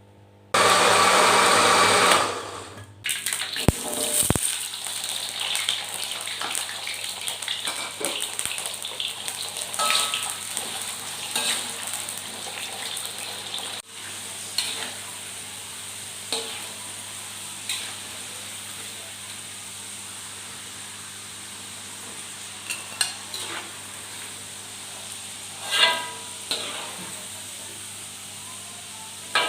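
Food frying in hot oil in a pan: a loud rush of sizzling for the first two seconds or so, then a steady sizzle with occasional clinks and taps of a utensil against the pan.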